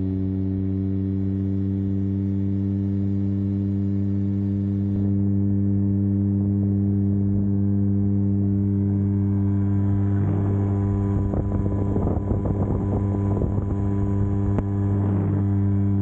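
Engine running steadily at a constant speed, a continuous low hum.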